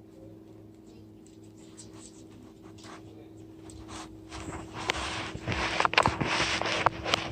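Rustling and scraping with sharp clicks from a camera strapped to a dog's back as the dog moves about, quiet at first and growing much louder about four and a half seconds in, over a faint steady hum.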